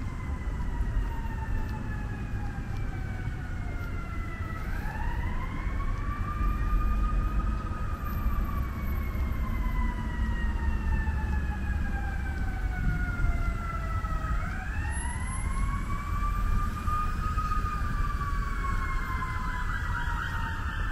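Emergency vehicle siren in a slow wail: the pitch climbs quickly, then falls slowly over several seconds, climbing again about five and fourteen seconds in. Under it a steady low rumble of road traffic.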